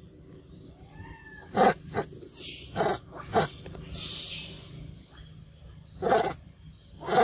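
Pig-tailed macaque eating a ripe mango close to the microphone: about six loud, short, wet mouth noises as it bites and chews, with softer sucking hisses between them.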